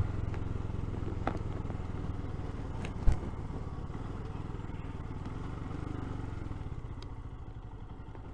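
Royal Enfield Himalayan's single-cylinder engine running steadily under way, a low hum that eases off a little towards the end. A sharp knock about three seconds in, with a few lighter clicks around it.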